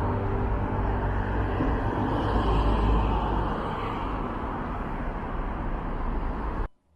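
Steady low rumble and hiss of road traffic, cutting off suddenly near the end.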